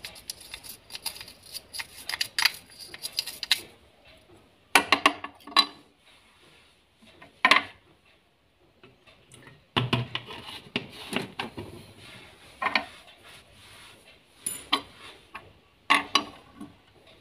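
Small clicks and scraping as the parts of an electrical switch are handled and its copper contact points are scrubbed with a petrol-wetted brush to clear carbon, in irregular bursts.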